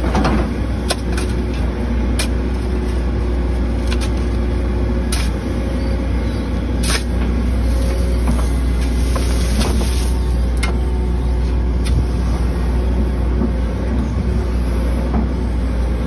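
Heavy machinery engine running steadily. Over it come scattered sharp scrapes and clinks of shovels digging into dirt and roots.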